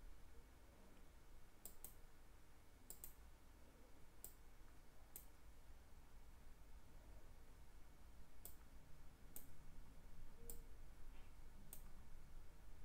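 Faint computer mouse button clicks, about ten, some in quick pairs, over a low steady hum.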